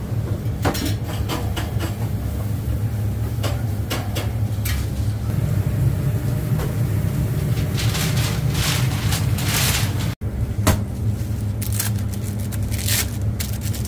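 Kitchen ambience: a steady low hum, with scattered clicks, clatter and rustling over it.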